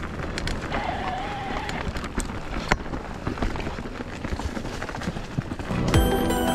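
Enduro mountain bike riding down a dirt trail: rolling tyre and trail noise with scattered clicks and knocks from the bike, and a short wavering squeal about a second in. Music comes in near the end.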